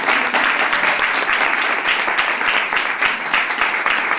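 Audience applauding steadily, a dense mass of many hands clapping at once.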